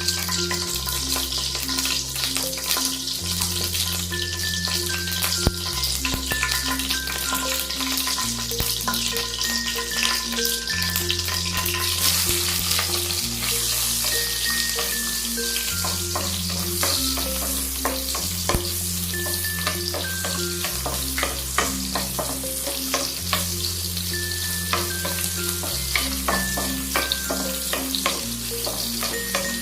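Food sizzling in hot oil in a pan and being stirred, with the scrape and tap of the spatula; the sizzle grows louder about twelve seconds in. Background music with a slow, stepped bass line plays throughout.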